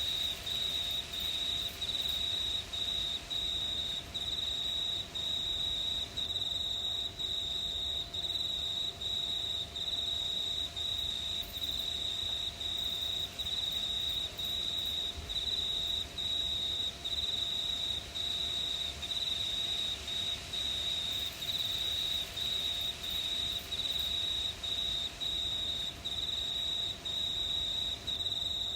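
Crickets chirping at night: a steady, high trill broken by short, regular gaps, over a faint low rumble.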